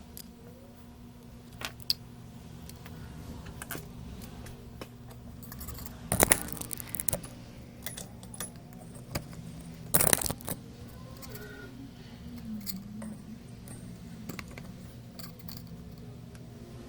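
Small metal repair tools clinking and clattering on a workbench, with scattered light clicks and two louder clatters about six and ten seconds in, over a steady low hum.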